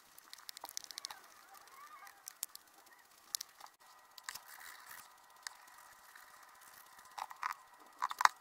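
Quiet handling sounds of art tools: small clicks, taps and light scratches as an ink squeeze bottle and a metal ink-line pen are worked over watercolour paper, with a cluster of sharper clicks near the end.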